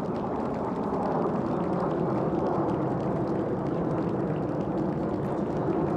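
Jet engine noise of a formation of F-4 Phantom fighters, twin J79 turbojets each, flying past: a steady rushing rumble that grows a little louder in the first second or so and then holds.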